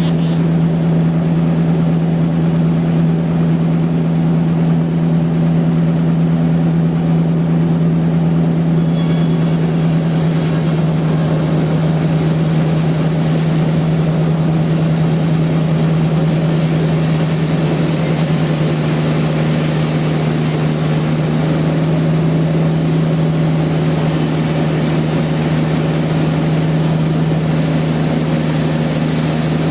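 Sawmill machinery running steadily with a strong constant hum; a hiss grows stronger about nine seconds in.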